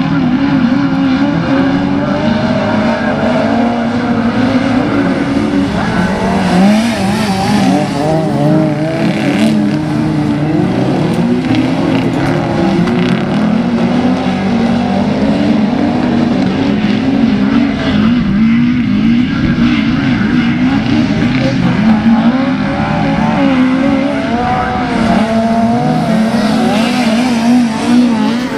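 A pack of autograss racing cars running flat out on a dirt oval, several small engines revving together. Their pitch keeps rising and falling as the drivers accelerate and lift through the bends.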